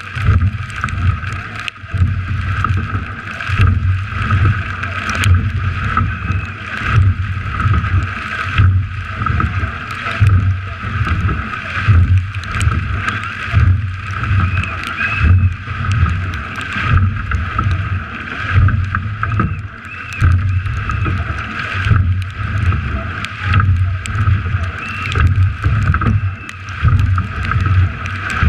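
Water rushing along the hull of a racing rowing eight at speed, heard from the bow, swelling and falling in a steady rhythm about once every two seconds as the crew's strokes drive the boat.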